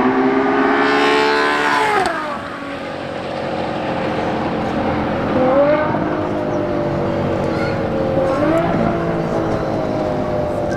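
Sports car engine and exhaust rising in pitch under throttle, falling sharply about two seconds in, then running at a steadier pitch with two brief dips and recoveries later on.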